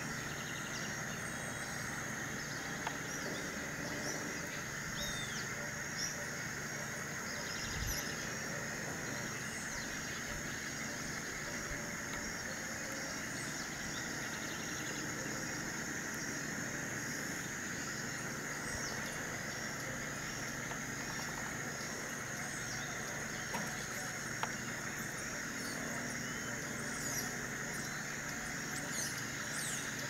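Rural outdoor ambience: a steady, high-pitched chorus with short bird chirps and whistles scattered through it.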